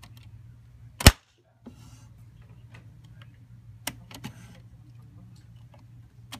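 A few sharp metallic clicks and light knocks as a concealed cabinet hinge on a wooden frame is handled and swung. The loudest is a single click about a second in, with two softer ones near the middle, over a faint steady hum.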